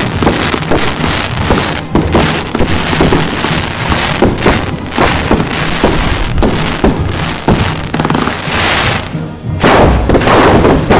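A dense, continuous crackle of firecracker bangs, many a second, over band music, with a louder burst near the end.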